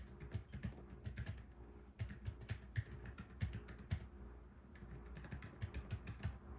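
Rapid typing on a Keyball44 split keyboard with Yushakobo Fairy silent linear switches. The keystrokes are damped by Poron foam in the PCB, acrylic plate and case and by silencing rings on the keys. There is a brief lull in the keystrokes a little past the middle.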